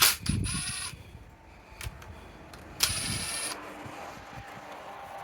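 Metal hand tools working on the engine: a sharp click, then two short metallic rattles about two and a half seconds apart.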